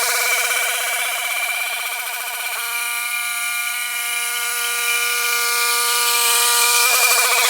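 Small engine of a brush cutter running at high speed while it crushes plant stems. Its pitch wavers for the first couple of seconds, holds steady through the middle, and wavers again near the end.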